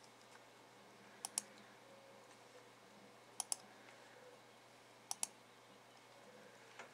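Computer mouse button double-clicked three times, about two seconds apart, over a faint steady hum.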